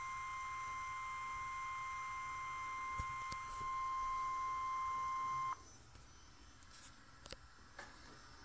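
NOAA Weather Radio warning alarm tone: a single steady high tone near 1050 Hz that signals an alert broadcast is about to follow. It cuts off suddenly about five and a half seconds in, leaving faint hiss and a few clicks.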